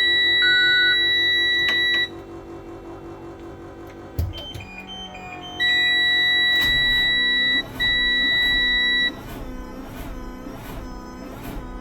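Dashboard warning buzzer of a 2018 Thomas Saf-T-Liner C2 school bus sounding a steady high tone. It stops about two seconds in, then comes back in two bursts around the middle, with a few short chime beeps just before them. From about halfway there is a slow, even pulsing as the starter cranks the Cummins B6.7 diesel without it catching: a hard start, which the owner presumably puts down to a starter that needs replacing.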